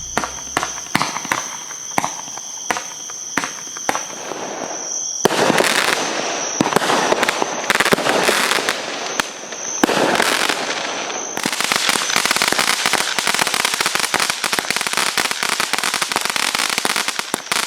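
Aerial fireworks cakes firing. The first five seconds hold a string of separate sharp pops over a thin steady high tone; from about five seconds in, dense crackling and bursts take over and carry on.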